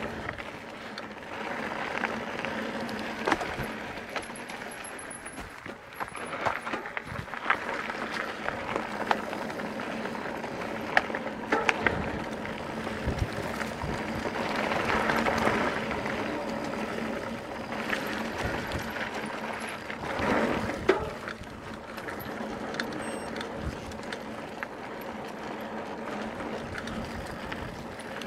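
Mountain bike being ridden over a dirt trail: steady tyre and wind noise with frequent sharp knocks and rattles from bumps.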